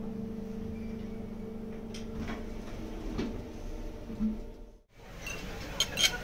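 A steady low mechanical hum with two pitched tones. It breaks off abruptly just before the last second, after which two sharp knocks or clicks follow close together.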